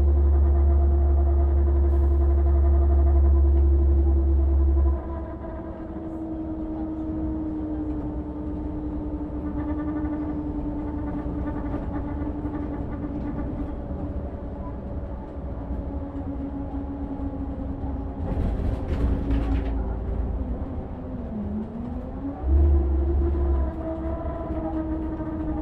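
A Volvo running, heard at its radiator. A steady whine slowly sinks in pitch, dips, then rises again late on. Under it a loud deep rumble cuts off suddenly about five seconds in and comes back briefly near the end, and a short hiss comes a little past the middle.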